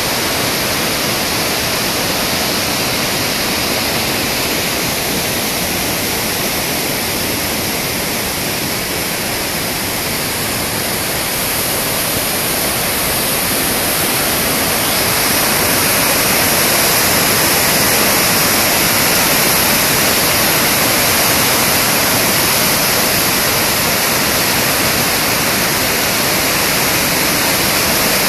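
Barron River in full flood: a steady, loud rush of floodwater pouring through the gorge's rapids and falls, growing a little louder about halfway through.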